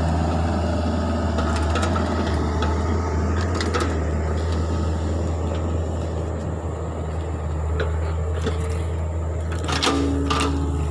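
Hitachi Zaxis 48U mini excavator's diesel engine running steadily while it digs, with scattered knocks and scrapes of the bucket working loose soil. A sharper cluster of knocks comes near the end.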